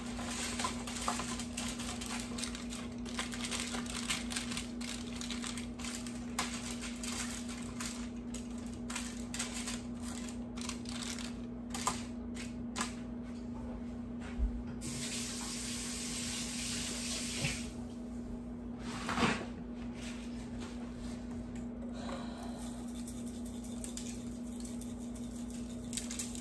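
Aluminium foil crinkling with many small crackles as it is folded around a baking tray. About fifteen seconds in, a tap runs for a couple of seconds, over a steady low hum.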